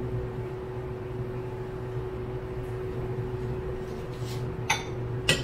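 A steady low hum, with two short clinks near the end as a small ceramic bowl is set down on the counter.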